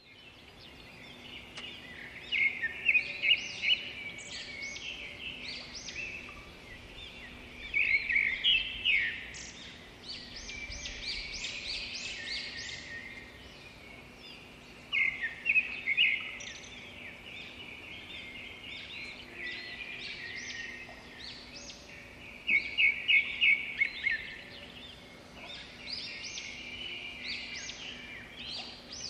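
A flock of blackbirds calling and chattering together in a dense, continuous chorus. Four times it swells into a loud burst of rapid calls.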